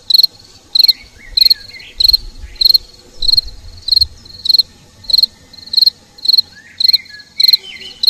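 Cricket chirping: an even, steady series of short high-pitched chirps, a little under two a second, each a quick trill of pulses.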